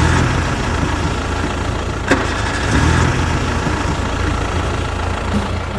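A vehicle engine running steadily, with a single sharp click about two seconds in.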